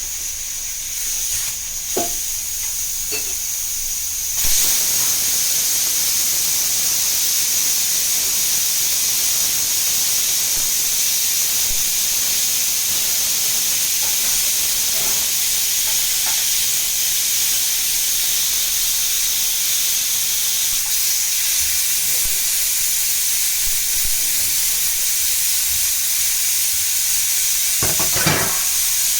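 Steady hissing sizzle of food cooking in a pan on a gas stove, stepping up louder about four seconds in and holding. A couple of short utensil knocks, one near the end.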